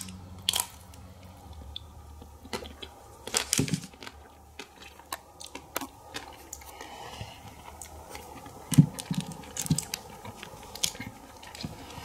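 Chewing a bite of a Magnum ice cream bar, its crisp white chocolate shell with coconut flakes crunching in irregular crackles and clicks, loudest about nine seconds in.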